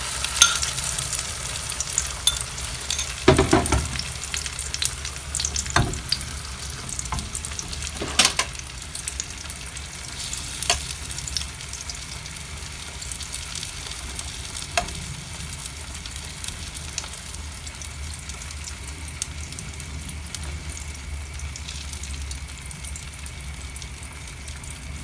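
Beaten egg mixture sizzling as it fries in hot oil in a pan, with a few sharp knocks against the pan in the first fifteen seconds.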